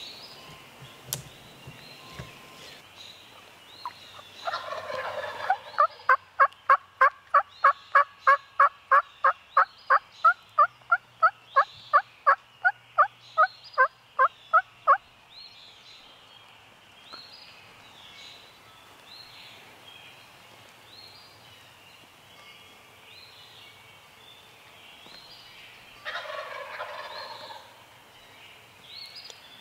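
Wild turkey gobbling, followed by a long run of about twenty-five loud, evenly spaced turkey yelps, then another gobble near the end.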